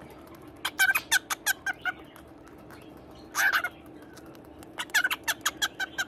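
Two rapid runs of short kissing smacks against a cockatiel, with one short cockatiel squawk between them about three and a half seconds in.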